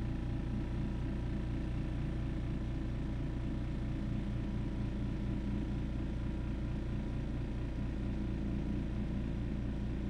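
GAST air compressor's 115-volt AC motor and pump running, compressing air into the tank: a steady hum with an even, rapid pulse from the pump.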